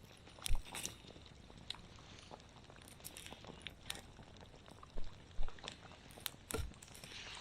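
Wood campfire crackling, with irregular sharp pops and snaps over a steady low hiss; the loudest pops come about half a second in, around five seconds in and shortly after. A pot simmers on the fire.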